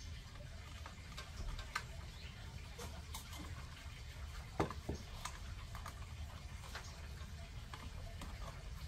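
Faint scattered clicks and small knocks as the swivelling lamp holders of an outdoor floodlight fixture are twisted and pushed by hand, with two louder knocks about four and a half seconds in, over a low steady hum.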